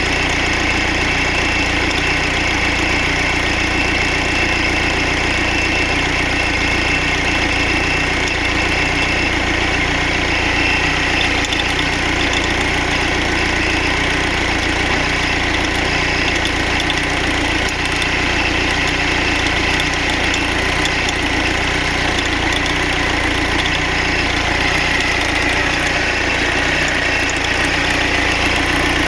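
Mercedes-Benz OM646 2.2-litre four-cylinder common-rail diesel idling steadily with a rattle, the fault the owner is recording.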